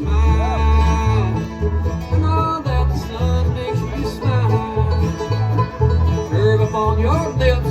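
Bluegrass band playing live: an instrumental stretch with banjo and guitar over a steady alternating bass line, with bending, sliding lead notes.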